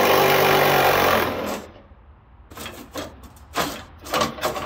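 Cordless impact gun running steadily with a rapid hammering rattle as it backs out a fender bolt, stopping about a second in. A few scattered knocks and rustles follow as the loosened fender is handled.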